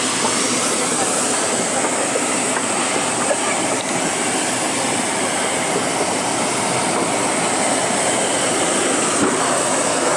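Steady cabin noise inside a Boeing 777-300ER airliner: an even rush of airflow and engine noise with no change in level.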